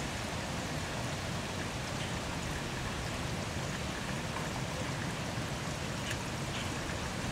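Heavy rain falling steadily: a constant even hiss with a few sharper drop taps.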